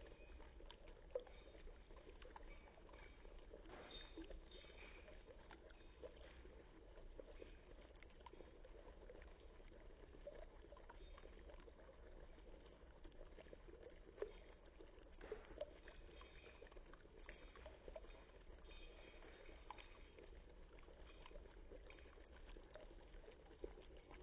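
Faint bubbling of dry ice in a cup of liquid, a soft steady gurgle flecked with small pops and a few sharper clicks, over a low steady hum.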